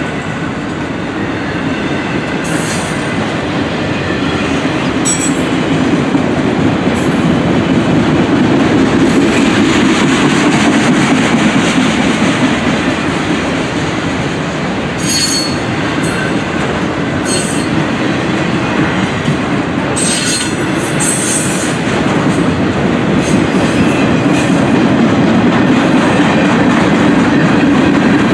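Freight train cars, autoracks then gondolas, rolling steadily past at close range: a continuous rumble of steel wheels on rail. Short high squeals from the wheels break through several times.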